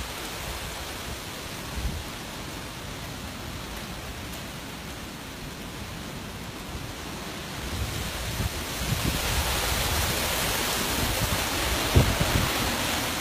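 Hurricane wind and rain, the gusts buffeting the microphone with a low rumble. The wind swells about eight seconds in, and there is a sharp thump about twelve seconds in.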